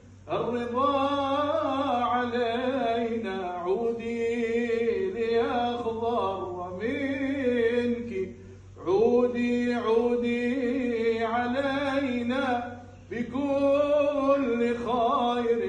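Solo male voice singing an Arabic devotional nasheed in long, ornamented melismatic phrases, with short breaks for breath about 8 and 13 seconds in.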